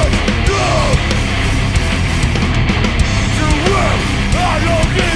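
Hardcore punk band playing live: distorted electric guitars, bass and drums, loud and dense, with no vocals.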